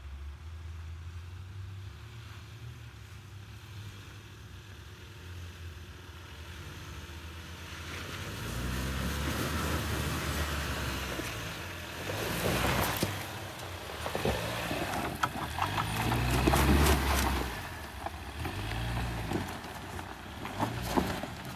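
2022 Ford Maverick FX4 pickup's engine running low and steady, then revving up in surges from about eight seconds in as it works over off-road terrain, with bursts of crackling and knocks mid-way and near the end.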